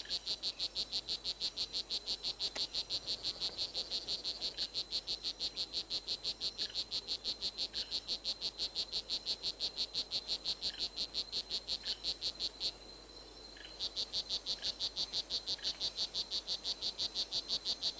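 Rainforest ambience dominated by a high, rapidly pulsed animal call, about five even pulses a second, typical of a calling frog. It breaks off for about a second two-thirds of the way through, then carries on.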